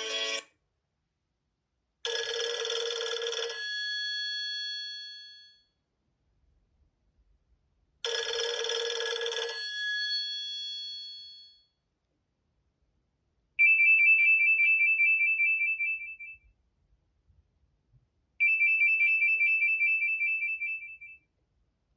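Nokia E72 alert tones. A bright electronic chime sounds twice, about six seconds apart, each hit ringing out for a few seconds. Then a high, rapidly pulsing electronic beep sounds twice, each lasting about three seconds.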